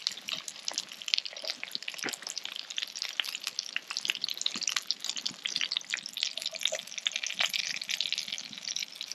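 Jalapeño poppers sizzling and crackling in a hot cast-iron Dutch oven just taken off the coals, a steady sizzle with many small pops.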